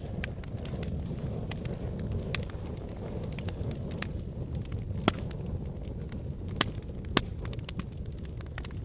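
Wood fire burning in a fireplace, a steady low rumble with irregular sharp crackles and pops, three louder pops in the second half.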